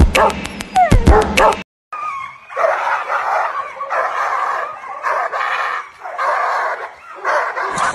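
Dogo Argentino barking repeatedly and aggressively, in rough drawn-out barks about once a second. Before it, a short stretch of music with a sharp beat cuts off about a second and a half in.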